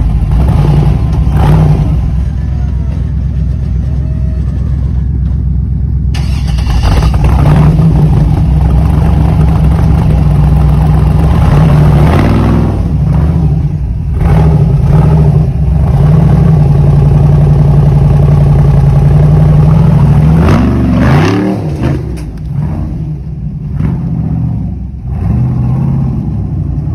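Rock crawler buggy's engine running hard under load on the rocks, revving up and down with the pitch swinging clearly about twelve seconds in and again around twenty-one seconds. It is quieter in the last few seconds.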